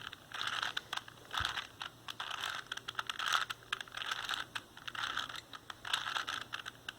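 A 4x4x4 Rubik's cube being turned quickly by hand, its plastic layers clicking and clacking in irregular bursts as an algorithm is run to position the last-layer corners.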